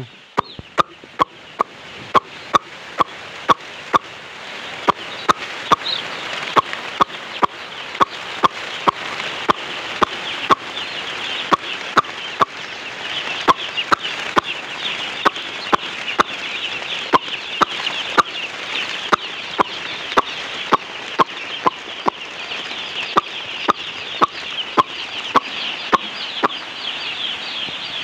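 A flock of broiler chicks cheeping, swelling louder over the first few seconds as they gather. Over them runs an evenly paced train of sharp clicks, about two or three a second: the farmer's calling signal that draws the chicks in.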